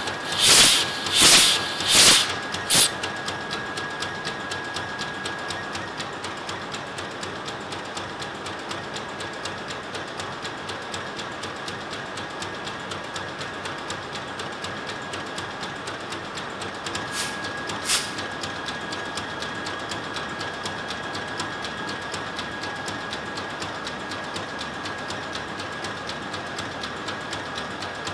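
Indicator cock on a cylinder of a slow-speed two-stroke marine diesel main engine opened to purge the line: four sharp hissing puffs of gas about three-quarters of a second apart. After that, the engine's steady rhythmic clatter, with two more short puffs about 17 seconds in.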